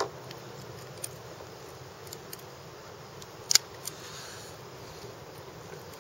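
Pliers clicking against a swallowed 1/0 fish hook while working to break its barb off: a few sharp metal ticks, the loudest about three and a half seconds in, over a steady low hiss.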